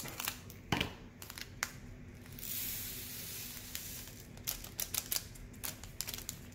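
Small plastic handling sounds: light clicks of diamond painting drills and clear plastic storage containers, with a soft rustle of a plastic drill bag around the middle, as the drills are tipped from the bag into a container.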